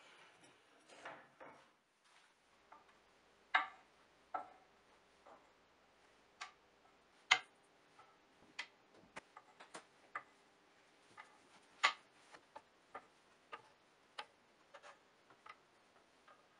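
Small cherry-branch wood slices being set down one at a time on a wooden slab: a string of light, irregular wooden clicks and taps, after a couple of seconds of soft rubbing at the start.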